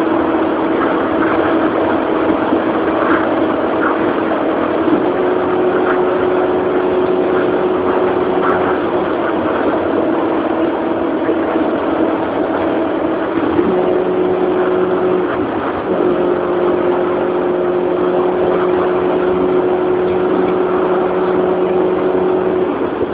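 A car engine running steadily under a loud road noise, its drone stepping up and back down in pitch several times.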